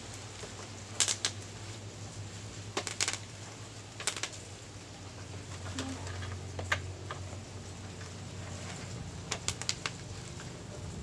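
Bubble wrap being popped by hand: sharp pops, some single and some in quick clusters of two to four, irregularly spaced, over a low steady hum.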